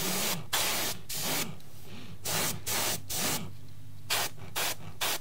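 Gravity-feed airbrush spraying paint in about a dozen short hisses of differing length, the quick trigger pulls of a light coat. A steady low hum runs underneath.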